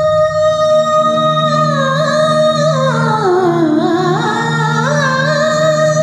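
A song with singing played through a Sony MHC-GNV111D mini hi-fi system. A singer holds a long note, winds down in ornamented slides to a lower pitch and climbs back to the held note near the end, over steady repeated bass notes.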